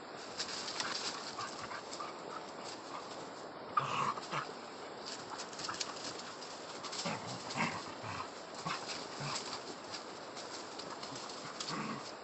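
A dog making a few short vocal sounds, about four seconds in, again near eight seconds and near the end, over light crackling and rustling of leaves and twigs.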